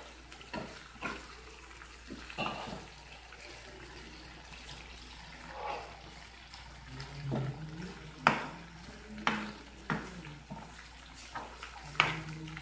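A ladle stirring sardines and rice noodles in broth in a pan, with scattered sharp clinks and scrapes against the pan. The clinks are irregular, with a few louder ones in the second half.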